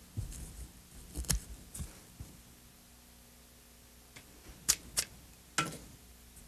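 Fly-tying scissors snipping a clump of deer hair for a spun-hair body: a few sharp snips, two of them close together near the middle, with soft rustling of the hair between.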